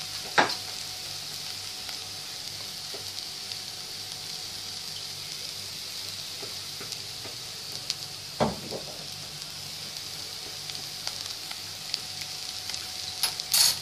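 Rice and onion frying in oil and butter in a pan, a steady sizzle, as soy sauce goes in. Three short, sharp knocks cut through: one just after the start, one about two-thirds through, one near the end.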